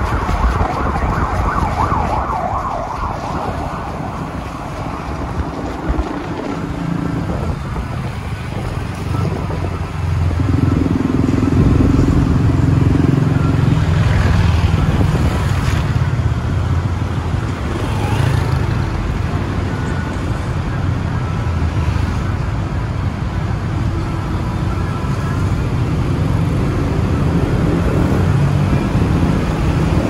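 A car driving in city traffic: steady engine and road noise, with the engine's pitch shifting in steps and growing louder about ten seconds in.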